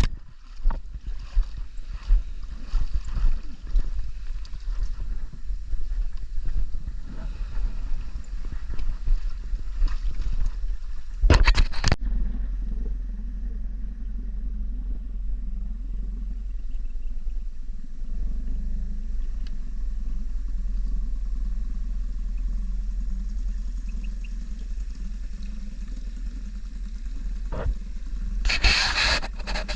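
A boat on the move: a motor running steadily with a low hum, under wind buffeting the microphone and irregular bumps in the first half. Two short bursts of hiss come about eleven seconds in and near the end.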